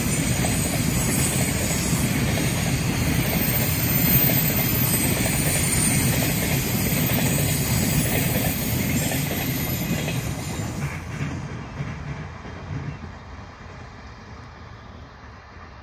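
Container freight train's wagons rolling past at speed, a steady noise of wheels on rail that fades away over the last few seconds as the train draws off.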